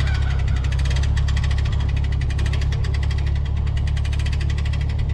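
Sawmill engine running steadily, a continuous low hum with a fast, even pulsing.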